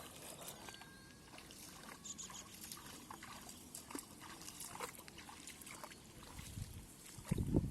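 Faint scattered small splashes and clicks of hands working through wet mud and shallow water, with a louder low rumbling burst near the end.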